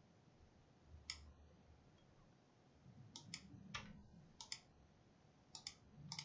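Computer mouse clicking: about ten short, faint clicks from about a second in, several coming in quick pairs, as points are selected and dragged.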